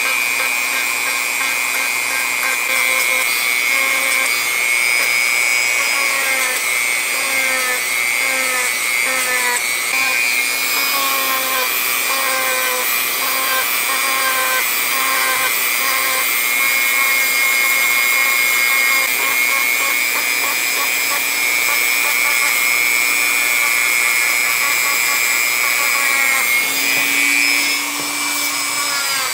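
A small high-speed power tool running steadily under load with a high whine, its pitch shifting slightly now and then as it works on the knife's metal.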